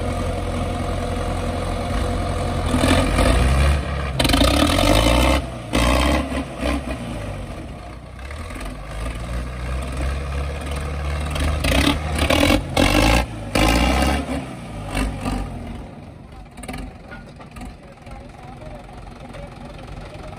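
Tractor diesel engine, running with its bonnet off, revved up and down in several surges, then dropping back to a quieter idle near the end.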